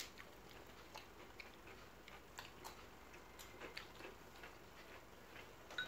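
Near silence with faint, irregular small clicks from people eating.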